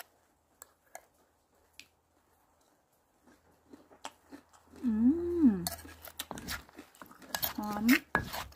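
Metal spoon and wooden pestle clicking and scraping against a clay mortar while pounded banana salad is mixed: a few scattered clicks at first, then a busier clatter over the second half. A short pitched voice-like sound rises and falls about halfway through and again near the end.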